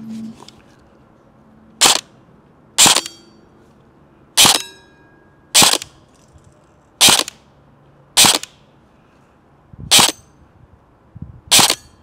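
Barra 400E electric .177 steel BB air rifle, an airsoft-style electric gearbox gun, firing eight short, sharp shots about a second apart. Two of them are followed by a brief ring.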